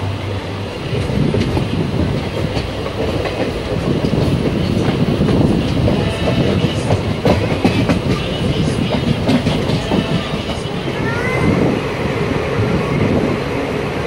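Passenger train coach running along the track, heard from its open window or door: a steady rumble of wheels on rails with clicks as they pass over rail joints, growing louder about a second in.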